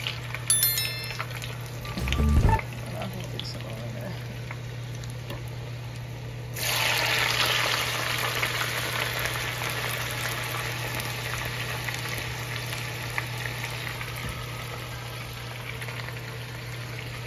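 Homemade potato fries deep-frying in a small pot of oil, sizzling and bubbling hard as water left on the cut potatoes boils off; the sizzle gets louder about six and a half seconds in. A short chime sounds near the start and a thump about two seconds in.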